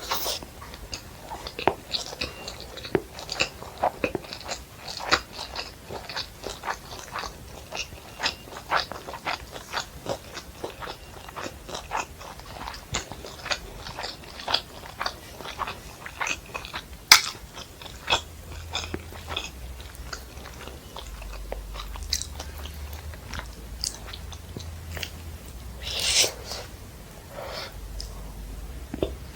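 Close-miked chewing and biting of fried rice and Manchurian: a rapid, irregular stream of wet mouth clicks and crunches, with a sharper click about halfway through and a longer rustling sound near the end.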